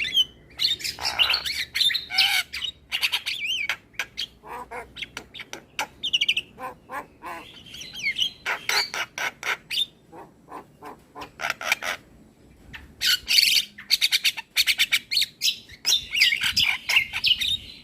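Javan myna (jalak kebo) singing: a fast, rambling run of whistles, harsh squawks and rapid clicking notes, with a short lull about ten seconds in.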